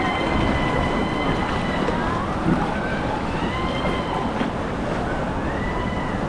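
Rushing, splashing water carrying a rider's tube along the White Water Wadi water slide, with wind buffeting the microphone. Faint high tones hold and slide up and down over the steady rush.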